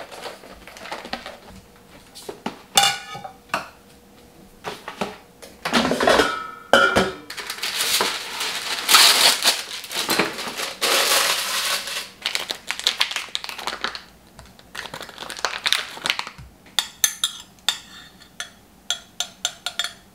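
Kitchen prep handling: knocks of items set on the countertop, then a long stretch of crinkling and rustling as plastic-wrapped corn is unwrapped and a paper towel is handled. Near the end, metal tongs clink quickly and repeatedly against a glass measuring cup while a butter mixture is stirred.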